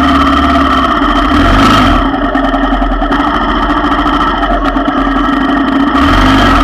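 ATV engine running at low, steady speed close to the microphone while crawling over a rocky trail, swelling briefly about a second and a half in and again near the end.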